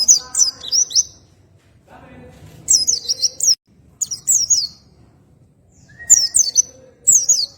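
Pleci (white-eye) singing its rolling song in short, rapid bursts of very high, zigzagging chirps, about five bursts with brief pauses between them.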